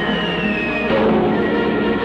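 Cartoon background music with many instruments playing together. A single high tone slides steadily downward over it and stops about a second in.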